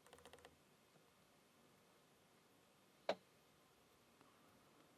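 Near silence, broken by a few faint ticks at the start and one short, sharp click about three seconds in.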